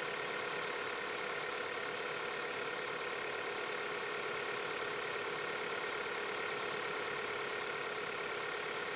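Overhead-cam engine running steadily at very high speed, around 14,000 RPM, a constant mechanical whirr with steady tones and no change in speed.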